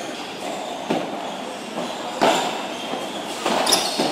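Padel ball being bounced and struck with a racket on the court: a few sharp separate knocks about a second apart, the last two close together near the end, over a steady background hum.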